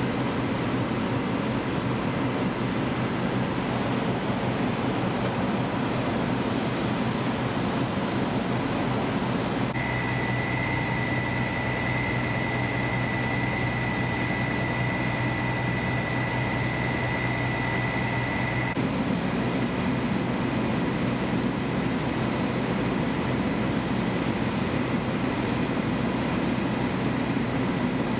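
Fire apparatus diesel engines and pumps running with a steady low rumble. In the middle section a steady high-pitched tone runs over the rumble and cuts in and out abruptly.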